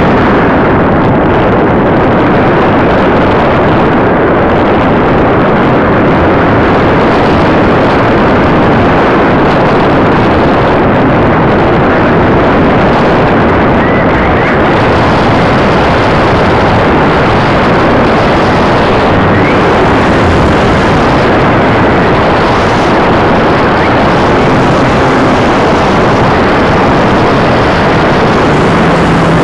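Steady, loud rush of airflow over the onboard camera's microphone on a Hobby King Deamon 2000 RC glider in flight, mixed with the noise of its spinning propeller.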